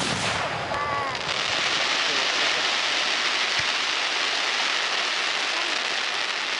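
Fireworks: a sharp bang at the start, then a dense, steady crackling from crackle shells, with one low thump in the middle.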